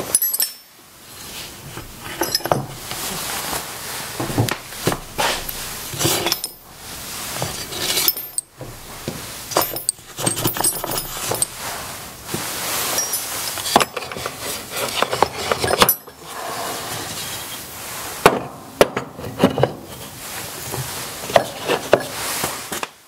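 Repeated wooden knocks and light metal clinks from tools being handled on a wooden workbench, among them a wooden block of router and drill bits being set down, its steel bits rattling. The knocking breaks off abruptly a few times and stops sharply near the end.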